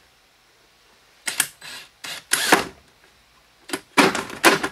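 Power drill with a hole saw cutting into the side of a plastic 5-gallon bucket: a few short bursts as the teeth bite the plastic, then steady cutting from about four seconds in.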